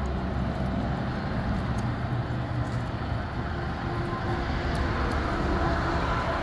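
Steady low rumble of an idling vehicle engine, with a faint steady higher hum joining near the end.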